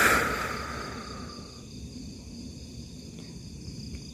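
A sudden breathy hiss, close to the microphone, that fades out over about a second and a half, over a steady chorus of crickets.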